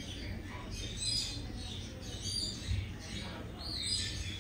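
Dwarf hamsters squeaking in short high-pitched bursts, about one every second, while scrabbling through wood-shaving bedding.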